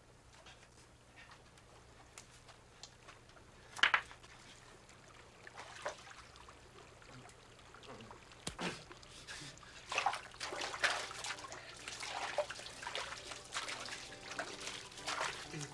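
Water splashing and trickling, growing busier from about ten seconds in, after a quiet stretch broken by two sharp knocks about four and eight and a half seconds in, the first being the loudest sound.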